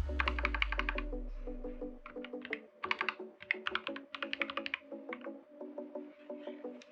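Typing on a Dark Project KD87A mechanical keyboard with Gateron Teal switches: quick runs of keystroke clacks with short pauses between them, over quiet background music.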